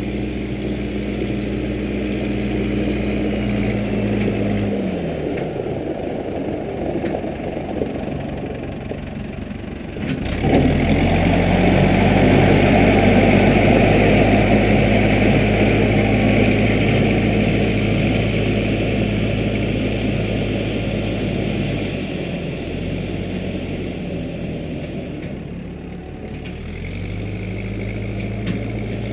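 Case 580B backhoe's engine running under changing load. Its steady note drops away about five seconds in, comes back with a sharp knock about ten seconds in and climbs, then sags again a few seconds before the end and recovers.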